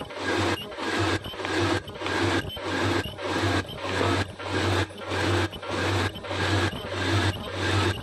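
Servo-driven zipper slider bag making machine running at production speed, cycling about twice a second with a rushing mechanical stroke each cycle over a steady low motor hum.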